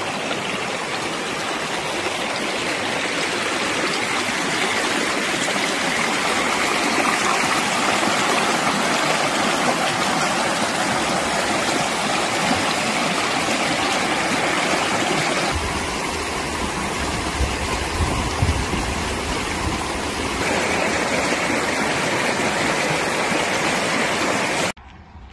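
Shallow river water rushing and splashing over rocks and stones, a steady rushing noise. For a few seconds in the middle a low rumble joins it, and the sound cuts off just before the end.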